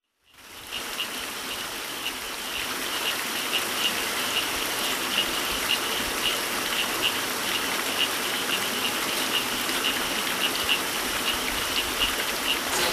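Mountain stream rushing and splashing over rocks, a steady roar of water that fades in just after the start. A high pulsing sound, a couple of pulses a second, runs over the water.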